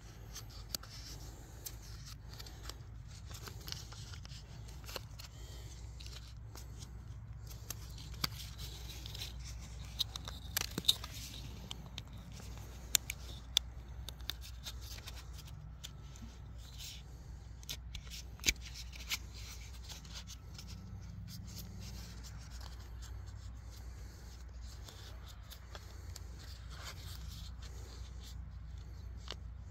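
Hands working black plastic drip-line tubing and a fitting: rustling and scraping, with sharp clicks scattered throughout. The loudest clicks come in a cluster about ten to fourteen seconds in and once more near eighteen seconds, over a steady low rumble.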